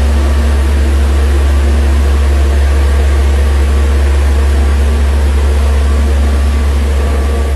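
Refrigeration unit of a refrigerated trailer running: a loud, steady hum and fan noise with a low drone and a few faint steady tones.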